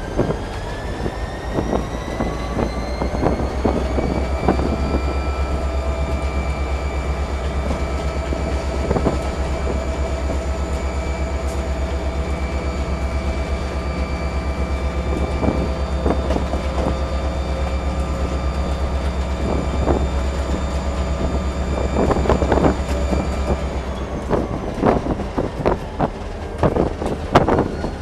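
Inside the cab of an EMD SD40-2 diesel locomotive under way: its 16-cylinder two-stroke diesel engine drones steadily under a whine that rises in pitch over the first few seconds, holds, then drops away a few seconds before the end. The wheels knock over rail joints, most often near the end.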